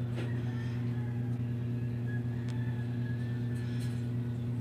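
A steady low mechanical hum, unchanging throughout, with a faint click about two and a half seconds in.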